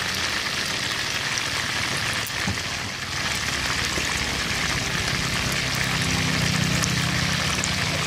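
Hot oil sizzling steadily in a wide steel wok as two whole chickens deep-fry, a dense hiss with fine crackling throughout.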